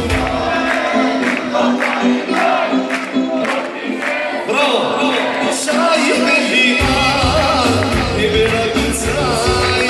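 Live wedding dance music with a male singer and guests clapping along. The low beat drops out about half a second in and comes back near seven seconds.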